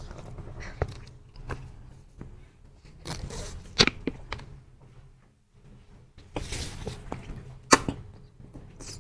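Mouth sounds of sucking a jelly stick out of its plastic tube: two breathy slurps with sharp wet clicks and smacks, the loudest about four and eight seconds in.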